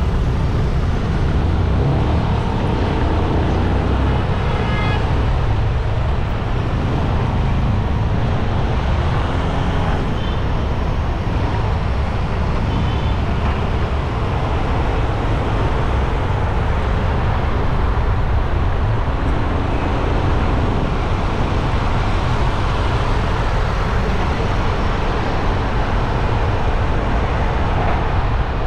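Steady city road traffic, with cars and trucks running past and a continuous low rumble. Short high-pitched tones come through briefly about four seconds in and again around ten to thirteen seconds in.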